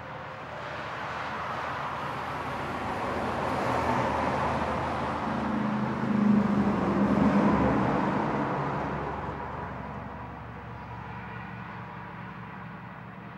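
Heavy semi-trailer trucks passing on a highway: diesel engine hum and tyre noise building to a peak a little past halfway, then fading as they draw away.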